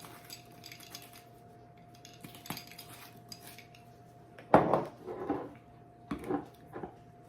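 Kitchen utensils and dishes clinking and knocking while a chicken salad is being seasoned: light clicks at first, then a sharp knock about halfway through and a few smaller clatters after it.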